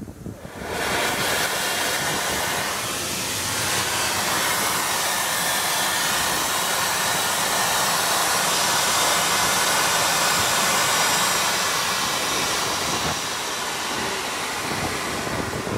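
Steam from the SR West Country Class locomotive 34027 Taw Valley: a loud, steady hiss of escaping steam that starts abruptly just under a second in and cuts off near the end.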